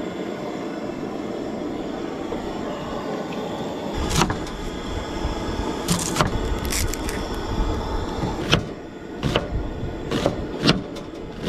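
A steady hiss from a camp stove's gas burner under a boiling pot. From about four seconds in, a chef's knife knocks sharply and irregularly on a plastic cutting board, slicing a red onion.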